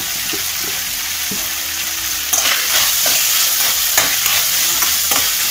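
Capsicum and onion sizzling in hot oil in a wok. From about two seconds in, the sizzle grows louder and a steel spoon scrapes and clicks against the pan as the vegetables are stirred.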